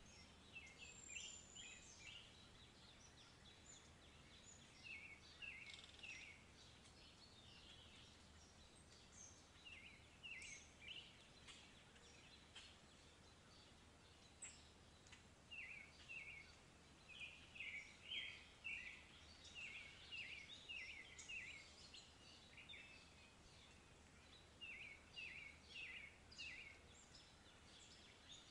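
Faint birdsong of a dawn chorus: quick runs of three to five short high notes, repeated every few seconds, with scattered higher chirps, over a faint low steady hum.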